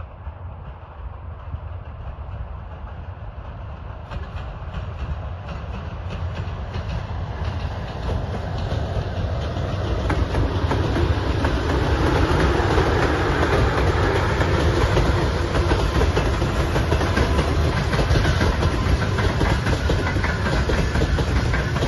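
Freight train wheels clattering over the rails, a dense run of clicks over a steady rumble that grows louder for about the first ten seconds and then holds steady.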